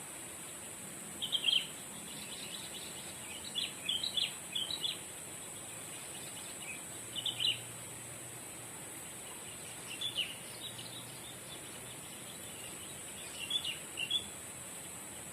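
Bird chirping in short clusters of quick high notes, about five bursts spaced a few seconds apart, over a steady background hiss.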